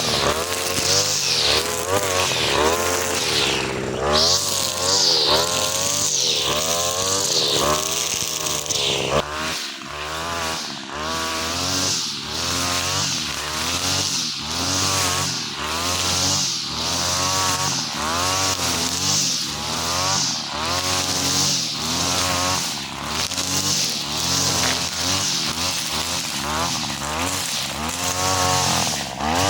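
43cc two-stroke brush cutter fitted with four-strand 2.5 mm nylon trimmer line, running hard, its engine pitch rising and falling about once a second as it cuts.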